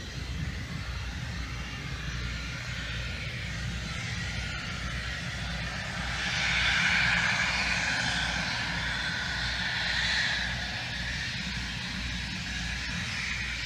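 Turbofan engines of a small business jet whining at taxi power. The high whine grows louder about halfway through, holds for a few seconds as the jet turns, then eases slightly.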